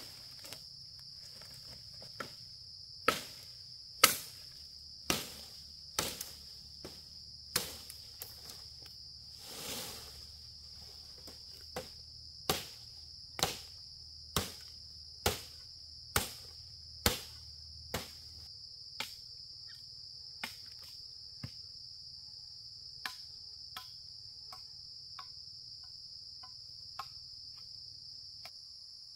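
A hand tool striking wood in a steady rhythm of about one hard knock a second, the strikes turning lighter and fainter in the last third. A steady high drone of insects runs beneath.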